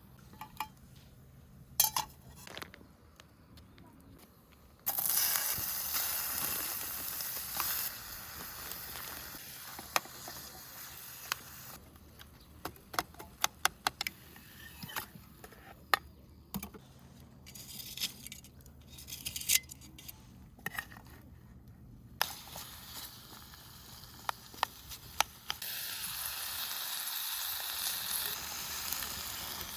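Food sizzling in a hot pan, starting suddenly about five seconds in, then a run of clinks and taps of cooking utensils, and sizzling again near the end.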